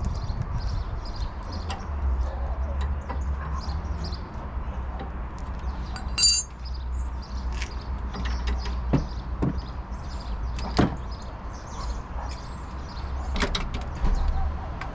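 Hand tools working on a car's front suspension: scattered small clicks and metal-on-metal clinks, with one short ringing clink about six seconds in and a few sharper knocks later. A steady low rumble runs underneath.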